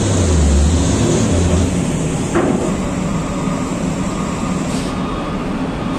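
Heavy diesel truck engine rumbling low and loud for about the first second and a half, then steady engine and machinery noise, with a single sharp knock a little over two seconds in.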